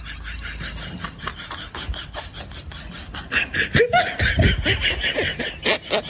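Laughter in quick snickering bursts, growing louder about halfway through.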